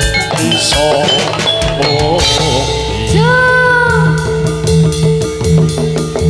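Live jathilan accompaniment music: gamelan-style percussion and drums keeping a steady beat over a sustained low tone, with a long sliding melody note coming in about three seconds in.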